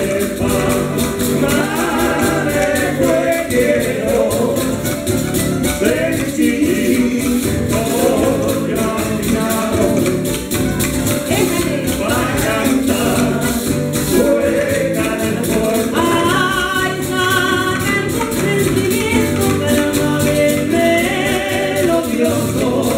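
Live cueca band playing: strummed acoustic guitars and double bass with singing over a steady, rhythmic percussion beat.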